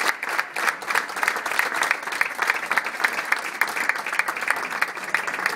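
Audience applauding: many hands clapping steadily after a sung duet.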